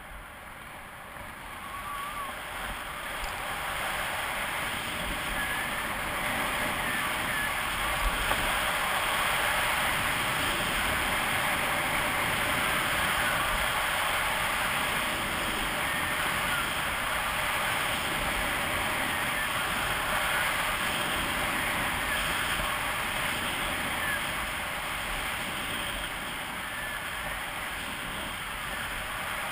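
Skis sliding and scraping over groomed snow on a downhill run, with wind rushing over the microphone. The rush builds over the first few seconds as speed picks up, then holds steady.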